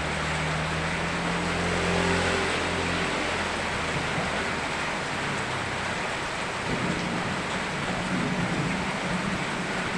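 Steady rain falling, an even hiss. A low hum sits under it for the first few seconds and comes back near the end.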